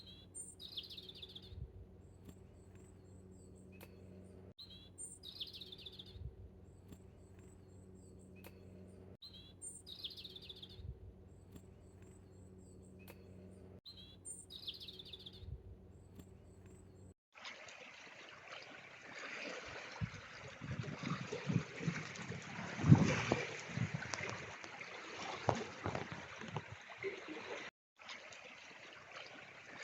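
A small songbird sings the same short, high phrase about every four and a half seconds, with a faint steady hum underneath. About 17 seconds in this cuts off abruptly to a rough rushing noise with irregular thumps, loudest about 23 seconds in.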